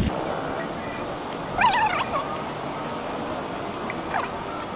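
A short, high, wavering animal cry about one and a half seconds in, and a fainter one near the end, over steady outdoor background noise. Faint high chirps repeat two or three times a second.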